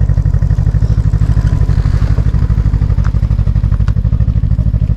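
Snowmobile engine idling steadily, a fast even pulsing with no revving.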